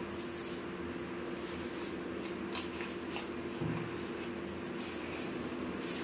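Fingers pressing and rubbing a self-adhesive velcro strip onto a window frame: light scratchy rustles at irregular moments, over a steady hum.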